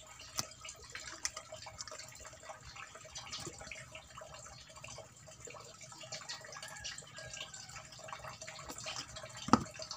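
Small knife cutting into a skinned puffer fish: faint wet clicks and scrapes of the blade in the flesh, with one sharp knock near the end.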